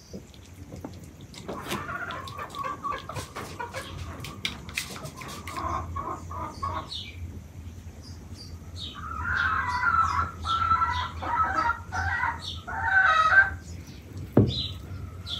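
Hens clucking and cackling, loudest from about nine to thirteen seconds in, with scattered light clicks and taps in the first half.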